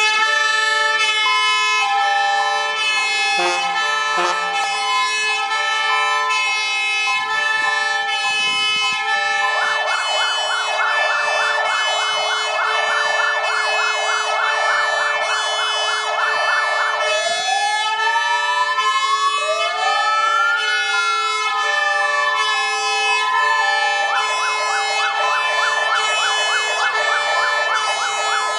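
Fire engine sirens sounding over a steady held siren tone. About nine seconds in an electronic siren starts a fast yelp, changes to a slow rising and falling wail, then goes back to the fast yelp near the end.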